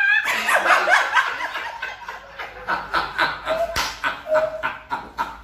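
People laughing hard in short bursts, mixed with a man's voice imitating a goat's bleat.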